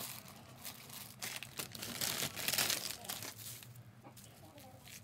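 Plastic crinkling and rustling with soil crunching as herbs are potted: a trowel digs in potting soil inside a plastic-lined basket and a basil plant is lifted out, loudest about two to three and a half seconds in.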